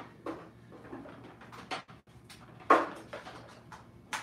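Scattered light clicks and knocks, with one louder knock about two-thirds of the way through, over a faint steady hum.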